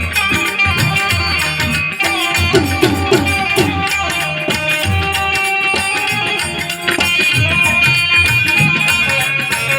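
Instrumental passage of an Indian folk song: steady hand-drum beats under a melody played on instruments, with no singing.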